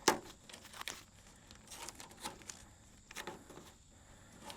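Tape being pulled off the roll and torn, with crinkling as it is handled: a sharp rip right at the start, then several shorter rips and crinkles.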